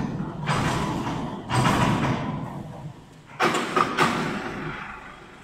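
A run of loud, sudden clattering bangs, about four in four seconds, each dying away within a second, the last two as sharp knocks close together. After that comes a faint steady hum.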